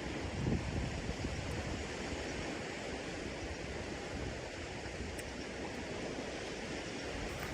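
Steady rushing noise of wind and water, with a brief low bump about half a second in.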